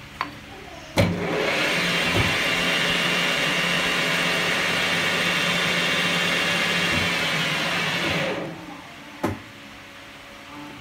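Metal lathe spindle starting with a sharp clunk and spinning a piston held in a three-jaw chuck, with no cut being made. It runs for about seven seconds with a steady hum and a high gear whine, then winds down and stops, followed by a single knock about nine seconds in.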